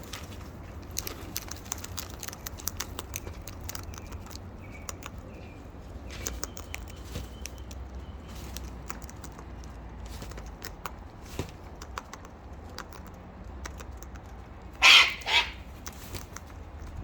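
Scattered small clicks and taps of birds pecking and feeding at close range, then two loud, short, harsh bird squawks about fifteen seconds in, half a second apart.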